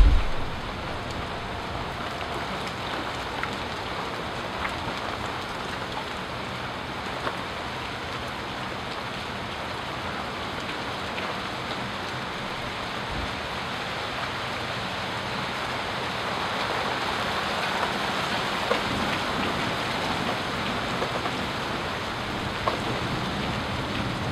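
Steady rain falling, an even hiss with a few scattered drips, growing slightly louder about two-thirds of the way through. The tail of a loud low rumble dies away in the first moment.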